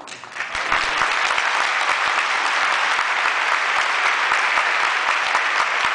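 Large audience applauding: many people clapping at once, building within the first second and then holding steady.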